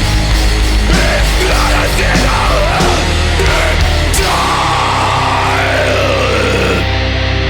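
Crust punk band playing loud and fast: distorted guitars and bass, pounding drums and cymbals, and harsh shouted vocals. Near the end the drums and cymbals drop out, leaving a held, distorted guitar chord ringing.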